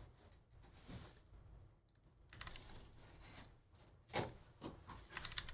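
Faint typing and clicking on a computer keyboard and mouse, a scatter of short clicks with the loudest about four seconds in.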